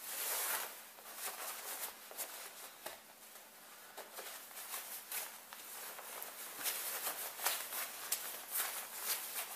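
Rustling and brushing of winter clothing fabric, a parka and mittens being handled and pulled on, in irregular soft strokes.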